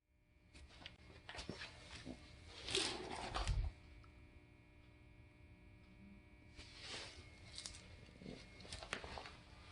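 Faint handling noises: rustling and scattered clicks, with a louder rustle and a low thump about three seconds in.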